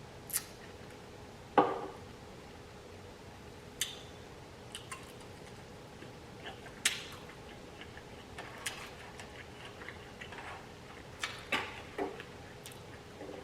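Close-miked eating: scattered sharp mouth clicks and smacks with light clinks against a plate, the loudest about one and a half seconds in, over a faint steady hum.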